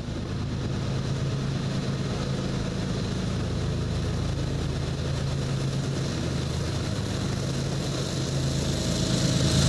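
Norfolk Southern diesel-electric locomotives running steadily as an intermodal train approaches, with an even low engine drone. It grows louder near the end as the locomotives pass close by underneath.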